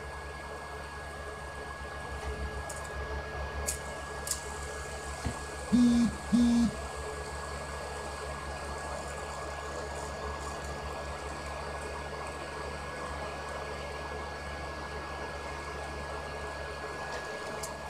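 Steady hum of an electric fan running in a small room, with a faint constant high whine. About six seconds in come two short, low hoot-like tones in quick succession.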